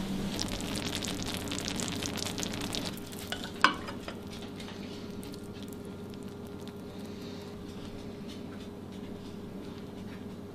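Silicone spatula stirring a milky mixture in a glass bowl: crackly scraping, loudest for the first three seconds and then quieter, with one sharp clink a little after three seconds in. A low steady hum runs underneath.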